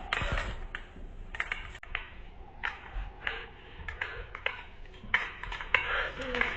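A baby bouncing in a doorway jumper: the harness's straps, clips and spring make a string of irregular sharp clicks and taps as it bobs up and down.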